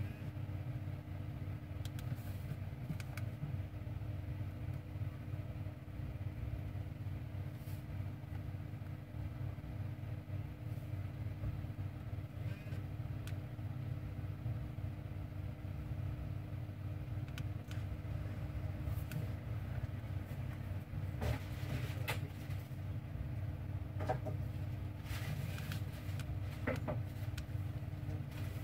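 Steady low background hum, with a few faint clicks and taps scattered through it.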